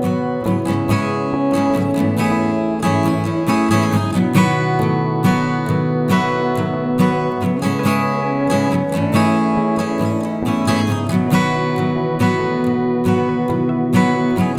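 Background music: strummed and plucked acoustic guitar playing steadily.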